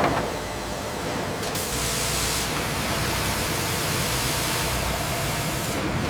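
Steady industrial machine noise: a broad hiss over a low rumble, with a brighter layer of hiss and rumble coming in about a second and a half in.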